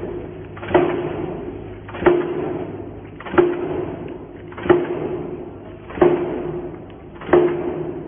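60-ton stamping press punching knuckle nail plates from steel strip, striking about once every 1.3 seconds. Six sharp metallic strikes, each followed by a short ring that fades before the next.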